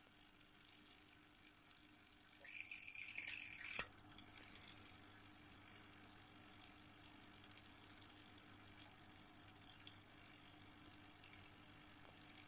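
Near silence with a faint steady hum. About two and a half seconds in, a brief rattling noise lasts just over a second and ends in a sharp click.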